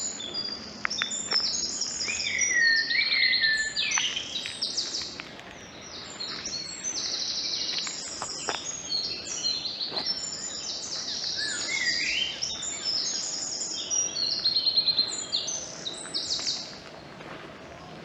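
Songbirds singing, several at once: a continuous chorus of high chirps, rapid trills and short whistled phrases, some falling in pitch.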